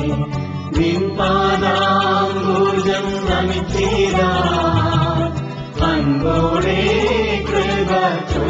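Christian devotional song: voices singing long, held notes that slide between pitches, over an instrumental accompaniment with a steady bass line.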